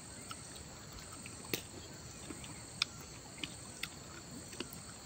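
Steady high chirring of insects in the surrounding woods, with several short sharp clicks scattered through it, the loudest about one and a half seconds in, from chewing and lip-smacking while eating with the fingers.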